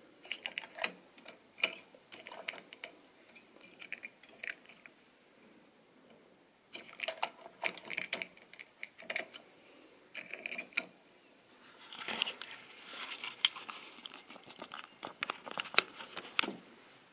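Irregular clicking and rattling of model railway rolling stock and track, in three bursts of a few seconds each with short lulls between.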